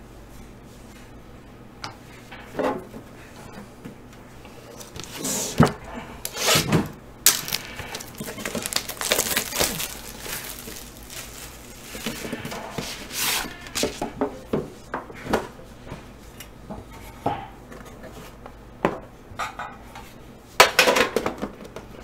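Trading-card boxes being handled on a table: cardboard and tin boxes sliding, scraping and knocking, with irregular rustles and clicks. The loudest scrapes come about a quarter of the way in and again near the end.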